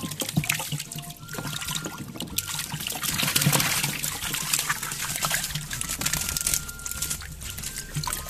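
Water splashing and dripping as a hand net is swept through a plastic bucket of pangasius catfish and lifted out with the fish in it, loudest a little past the middle.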